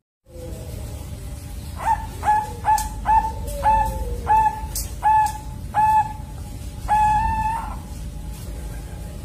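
Young two-month-old zebra dove (perkutut Bangkok) cooing: a run of about ten short, clear notes at one pitch, the last one held longer. It is the simple practice song of a juvenile still learning to sing.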